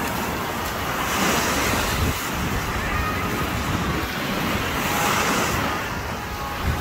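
Small surf waves breaking and washing up onto a sandy beach, a steady rushing wash, with wind buffeting the phone's microphone.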